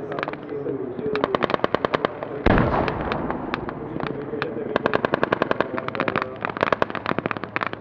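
Soldiers' assault rifles and a light machine gun firing blanks in rapid automatic bursts, about ten shots a second, in three runs, with one heavier bang about two and a half seconds in.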